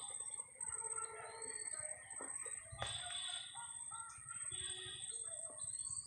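Several forest birds giving short, overlapping calls, over a steady high-pitched whine.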